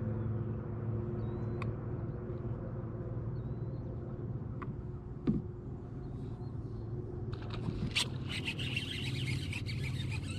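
Electric trolling motor humming steadily at the bow of a bass boat, with a few faint clicks and small chirps over it and a single soft thump about five seconds in. From about seven seconds in a rough crackling splash-like hiss joins, as a hooked fish bends the rod.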